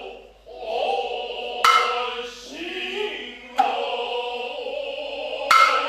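Noh music from the hayashi ensemble: sustained pitched tones with drawn-out chanted voices, punctuated by three sharp, ringing hand-drum strikes about two seconds apart.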